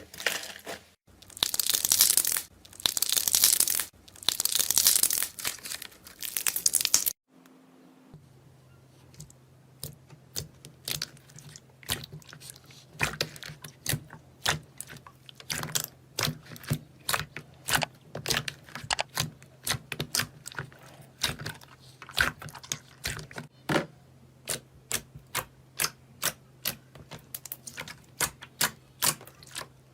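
Slime being squeezed and worked by hand: three long, loud stretches of crackly, rustling noise. After a brief gap, a quieter run of sharp little clicks and pops, several a second, over a faint steady low hum.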